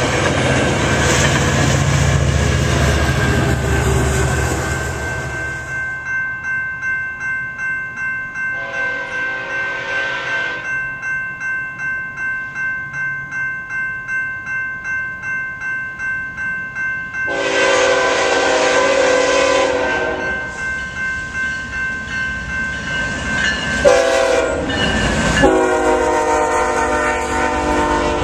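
A Metrolink bilevel commuter train rumbling past over a grade crossing. Then grade-crossing warning bells ring about twice a second while an approaching BNSF freight locomotive sounds its air horn in the long, long, short, long crossing signal.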